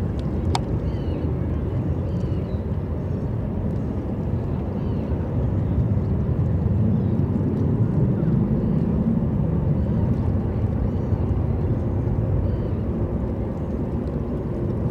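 Distant jet airliner noise at an airport: a steady low rumble that swells about halfway through and then eases off, with one sharp click about half a second in.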